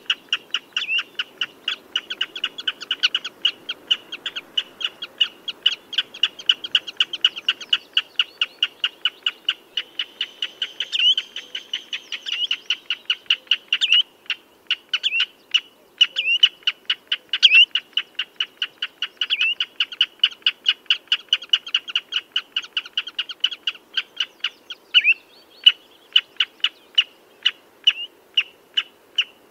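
Common redshank calling: a long, fast run of sharp, piping notes, several a second, with now and then a longer slurred note.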